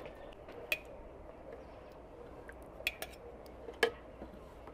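Several sharp clinks of a ladle and a glass jar against an enamel bowl while fig jam is filled into the jar. The loudest clink comes near the end.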